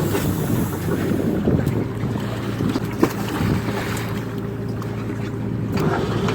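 Fishing boat's engine and deck machinery running steadily, with wind on the microphone. One sharp knock about three seconds in.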